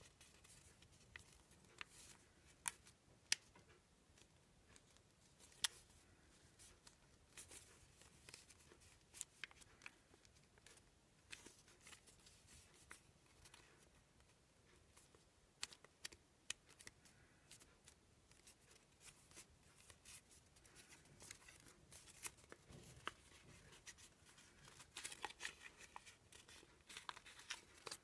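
Faint crinkling, rustling and sharp little clicks of a sheet of paper being creased and folded by hand into an origami crane. The rustling grows denser near the end.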